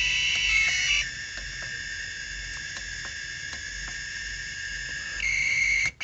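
High-pitched electronic whine from a Maytag washer control board's switching power supply, steady with several overtones. Its pitch drops a little about a second in and goes back up near the end, with a brief cut just before it ends. The technician takes it for the supply oscillating audibly, a sign of a fault in the supply or a short on the interface board, since these supplies are normally silent.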